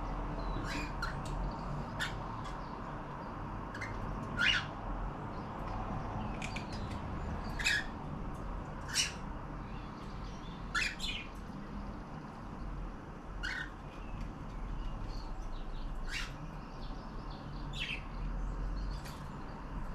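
Pet cockatiels giving short chirps and squawks, scattered every second or so, over a steady low background hum.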